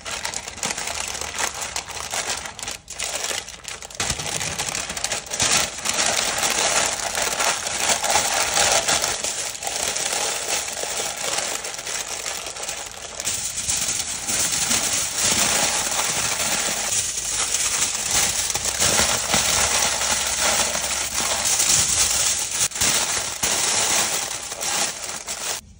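Parchment paper and aluminum foil being crumpled and folded around a raw pork cut: a dense, continuous crinkling and crackling.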